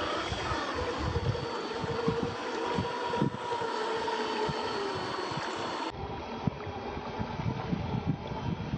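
Radio-controlled scale Willys jeep running off-road: a steady motor and gear whine, with wind buffeting the microphone in low gusts.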